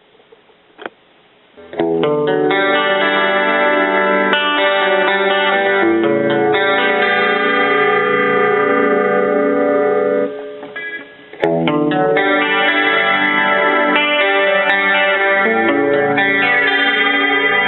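Electric guitar played clean through a Roland Jazz Chorus amplifier: ringing strummed chords with a slow, wavering chorus shimmer. The chords start a couple of seconds in, break off about ten seconds in, and come back a second or so later.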